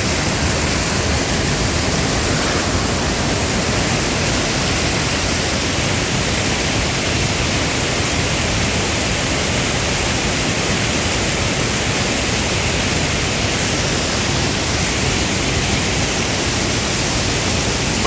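Tall mountain waterfall and the rocky cascade below it: a loud, steady rush of falling water that does not let up.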